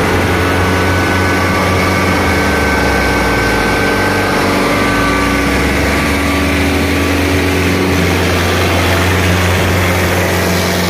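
Diesel tractor engines of a Kubota and a Mahindra Arjun Ultra running hard under heavy load as the two tractors pull against each other in a tug-of-war, a steady low drone.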